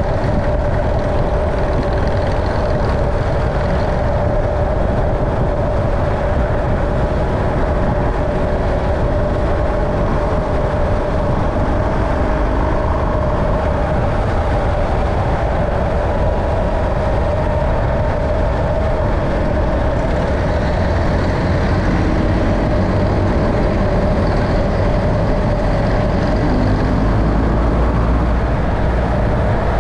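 Steady running noise of a moving road vehicle: a low rumble with a constant hum, unchanging, with no distinct events.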